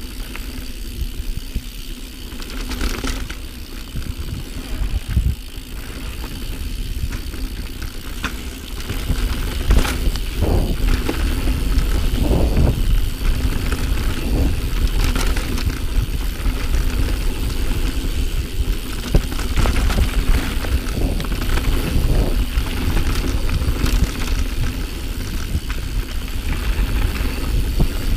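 Mountain bike riding fast down a dirt singletrack: wind rumbling on the microphone, tyres rolling over dirt and the bike rattling with knocks over bumps. It gets louder about a third of the way in as the speed picks up.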